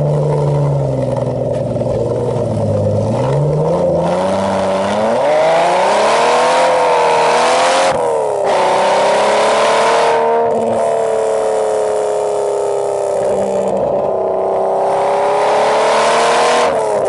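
Car engine accelerating under load, its note climbing, then falling sharply at a gearchange about eight seconds in, after which it holds a steady note at speed and drops again near the end.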